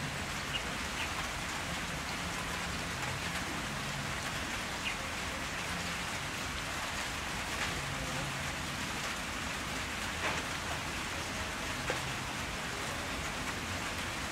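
Steady rain-like hiss with scattered faint ticks.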